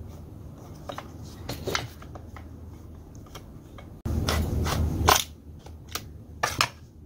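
T-handle socket wrench loosening the 8 mm nuts that hold the carburettor of a STIHL MS180C chainsaw: scattered metal clicks and scrapes, with a louder stretch of rustling and handling noise about four seconds in, followed by a few sharper clicks.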